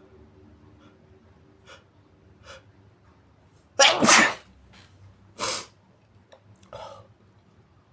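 A person sneezing: a few faint sniffs, then a big muffled sneeze about four seconds in, the loudest sound. Two shorter bursts follow about a second and a half apart, the second fainter.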